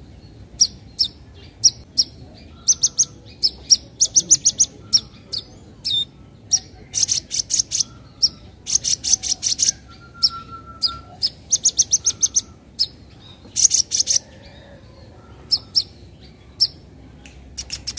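Young Van Hasselt's sunbird (kolibri ninja) calling: sharp, high 'crett' chips, some single and some run together into quick rattling series of about half a second to a second.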